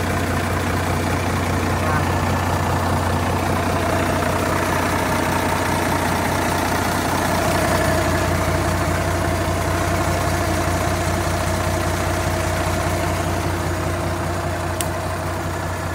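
Iseki 8020 compact tractor's engine idling steadily.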